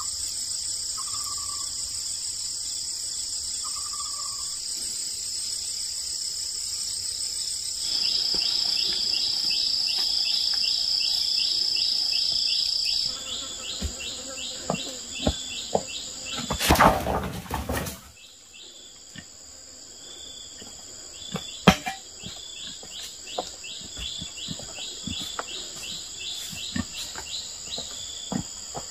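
Insects calling steadily: a continuous high shrill, joined about a third of the way in by a fast, evenly pulsing chirp. A little past halfway comes a brief loud noise, and light clicks and taps are scattered through the second half.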